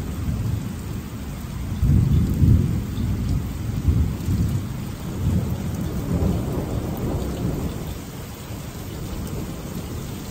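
Thunder rumbling low, swelling about two seconds in and dying away near the end, over a steady hiss of rain.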